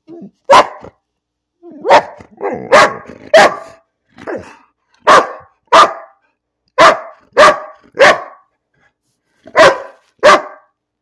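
A large short-haired dog barking repeatedly: about a dozen loud, short barks, several coming in quick pairs, with brief pauses between them.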